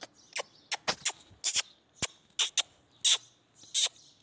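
Person making quick kissing and clicking sounds with the lips to call a dog: about a dozen short, sharp squeaks at an uneven pace, a few slightly longer than the rest.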